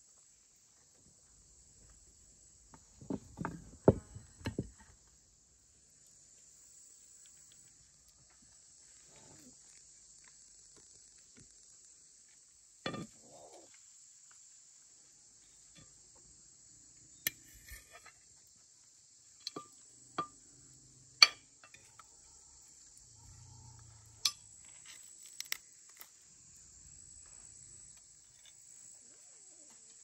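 Scattered clinks and scrapes of spoons and forks against ceramic plates and a clay serving bowl as food is dished out: a cluster about three seconds in, and several more through the second half. A steady high chirring of insects runs underneath.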